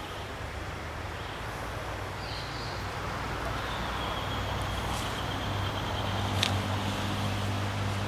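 A vehicle engine running steadily at low speed, its hum firming up a little about six seconds in. A bird chirps briefly and gives a thin whistle in the middle, and there is a sharp click about six and a half seconds in.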